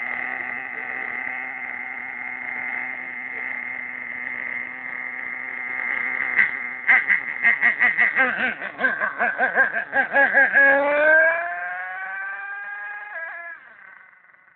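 HPI Savage 25 RC monster truck's .25-size nitro two-stroke engine running with a steady high-pitched drone, then blipped in quick pulses from about seven seconds in. It then accelerates with a rising whine and fades as the truck drives off.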